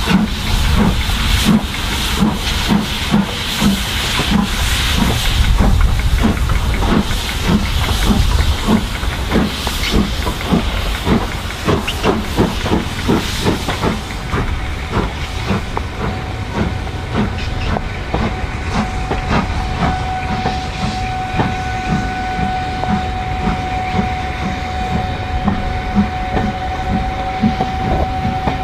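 LMS Black Five two-cylinder 4-6-0 steam locomotive pulling away, with a steady rhythm of exhaust beats and a loud hiss of steam from her open drain cocks that eases after the first several seconds. A steady high tone joins in about two-thirds of the way through.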